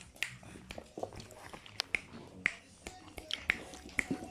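A series of sharp, irregularly spaced clicks, about two a second.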